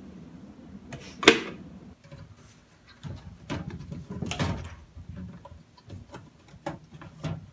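A sharp click about a second in, then plastic scraping and creaking with a few short clicks as the plastic diffuser cover of a square LED ceiling light is worked loose from its frame.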